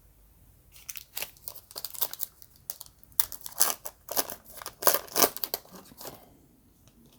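Trading-card pack wrapper being torn open and crinkled by hand: a string of sharp crackles starting about a second in, loudest in the middle, and stopping about a second before the end.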